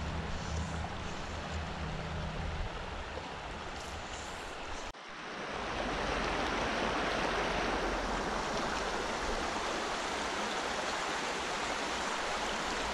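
Shallow mountain stream running over stones. About five seconds in the sound cuts to a louder, fuller rushing from a riffle.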